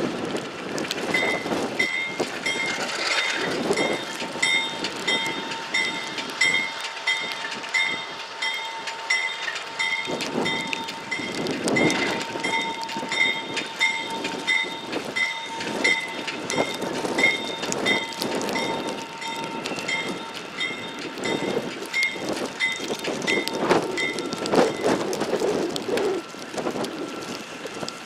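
Alco RS11 diesel locomotive moving slowly with its bell ringing in an even, steady rhythm, about two strikes a second, the bell stopping about four seconds before the end. The locomotive's twelve-cylinder Alco 251 diesel runs underneath, with irregular knocks from the wheels and running gear.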